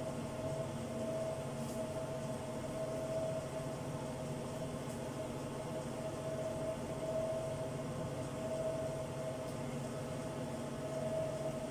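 A steady machine hum with a constant whining tone, from a running motor such as a fan or household appliance.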